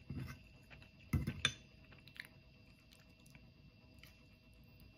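Quiet eating sounds: a metal spoon clinking and scraping in a ceramic rice bowl and a crab shell, with soft chewing, loudest about a second in. A faint steady hum lies underneath.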